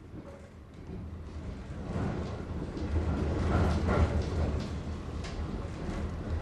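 Low rumble of a moving vehicle that swells over the first few seconds, with a few faint clicks and rattles.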